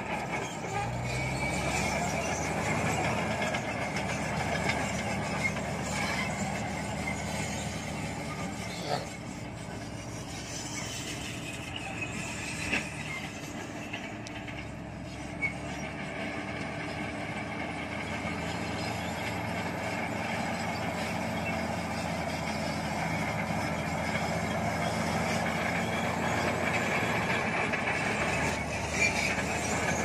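SHANTUI SD22 crawler bulldozer's diesel engine running steadily under load as it pushes soil, with a few sharp clanks. It is somewhat quieter through the middle as the machine moves off, and louder again near the end.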